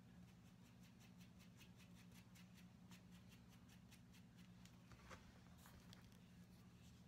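Near silence: room tone with a faint steady low hum, and a quick run of faint soft clicks about a second in, with a few more near the end.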